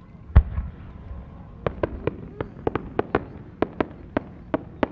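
A large 10-gou fireworks shell: one deep boom as it is launched from its mortar, then a quick string of about a dozen sharp cracks as small bursts go off on its climb.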